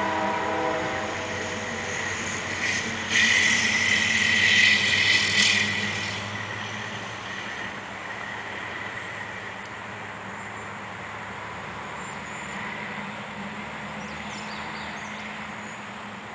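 Diesel locomotive horn chord cutting off about a second in, then a loud high-pitched screech with hiss from the train for about three seconds. Underneath, the locomotive's diesel engine runs with a steady low drone that grows fainter as the train pulls away.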